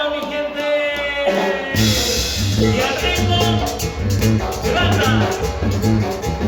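Live band music. It opens on a held chord, and a little under two seconds in the full band comes in with bass and drums on a steady beat.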